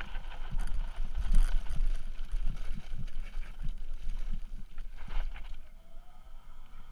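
Electric trike riding over rough dirt, its frame and fittings rattling and knocking with the bumps, under heavy wind rumble on the mounted microphone. Near the end a faint rising whine comes in from the trike's motor as it picks up speed onto the smooth path.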